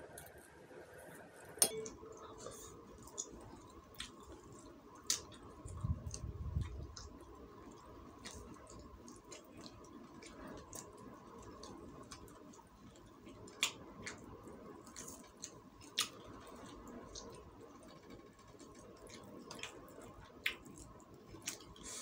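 Fingers pulling apart a cooked quail, with scattered small sharp clicks and crackles as it tears. A soft low thump about six seconds in.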